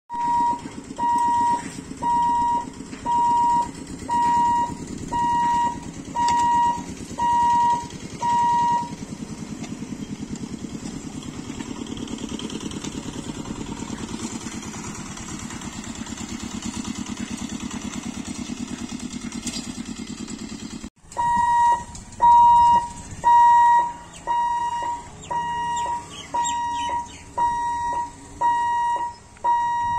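Electric level-crossing warning hooter beeping a steady single tone about once a second, the signal that the boom barriers are coming down for a train. About nine seconds in the beeping stops and a small motor vehicle's engine runs steadily; the beeping starts again suddenly about 21 seconds in.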